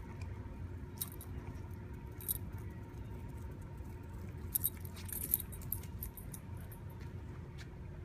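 Steady low outdoor rumble with a faint hum, broken by a few brief, light metallic jingles and clicks from a dog's collar tags as it moves its head, with a short cluster about halfway through.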